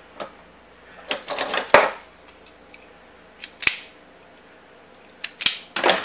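Metal hand tools (crimpers and wire strippers) clinking and clattering against each other and the wooden table, with sharp clicks from a wire stripper's jaws snapping shut. The clicks come in groups about a second in, around the middle, and near the end.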